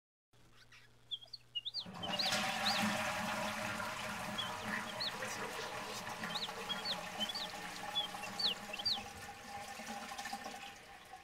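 Water rushing in a steady noisy stream as a toilet flushes, starting suddenly about two seconds in and fading near the end. Small birds chirp briefly now and then throughout.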